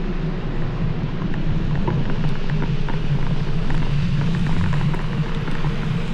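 Steady rumble of a vehicle on the move, with road and wind noise.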